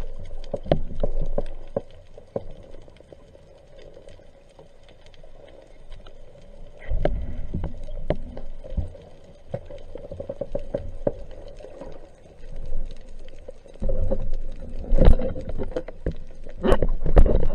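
Underwater sound through a diving camera's housing: water moving past the camera in low surges, with a steady hum and many scattered sharp clicks.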